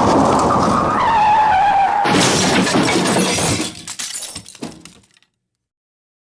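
Car crash sound effect: tyres screech in a falling squeal, then about two seconds in a crash with shattering glass, followed by pieces rattling and falling that die away, stopping dead a little after five seconds.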